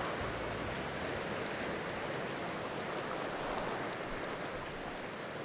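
Sea waves washing on a rocky shore, a steady rushing that slowly fades away near the end.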